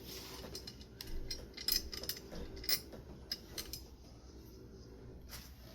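Small metal fan parts being handled: a run of light clicks and clinks, several in the first four seconds, fewer after.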